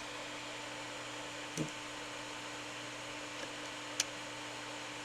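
Faulty hard disk drive knocking, three short sharp knocks a second or two apart over a steady background hum; the drive is failing to start up.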